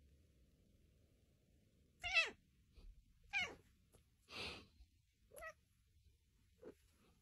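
A cat meowing about five times, starting about two seconds in: short calls roughly a second apart, each falling in pitch. The middle call is breathier and noisier than the rest.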